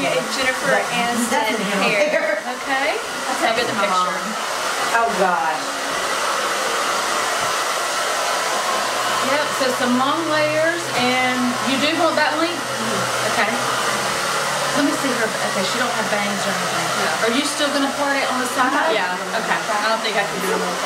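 A hair dryer running steadily, with indistinct voices beneath it. A low hum joins in about nine seconds in.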